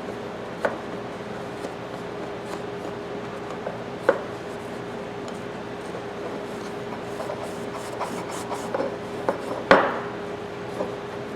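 Scattered small knocks and clicks of a steel pipe wrench being handled and rubbed on a workbench, with the loudest knock near the end, over a steady hum.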